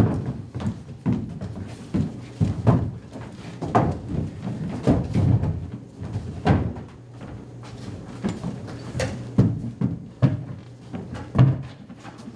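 Wooden stage props (boxes and benches) being moved and set down on a stage floor: irregular knocks and thumps, a dozen or so, spread unevenly.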